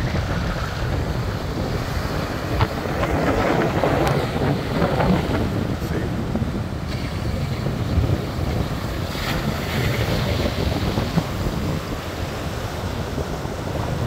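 Small Chesapeake Bay waves breaking and washing up a sandy beach, with wind buffeting the microphone in a steady low rumble.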